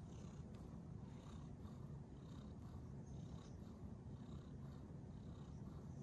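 Munchkin cat purring, a faint, steady low rumble with a gentle regular pulse.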